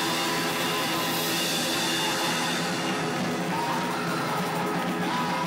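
A garage-rock band playing live: distorted electric guitars over a drum kit with cymbals, as one sustained, dense wall of sound.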